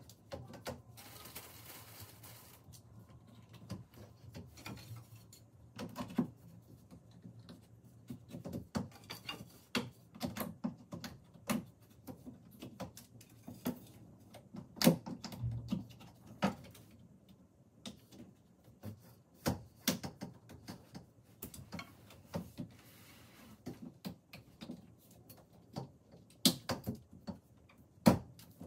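Curved wooden bed slats being handled and fitted into the slat holders of a bed frame: irregular clicks, knocks and light clatter, with a brief rustle near the start.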